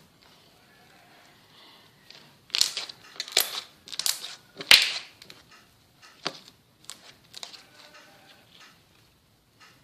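Slime being squished and poked by hand, with a run of loud, sharp pops and clicks about two to five seconds in and softer crackling clicks after.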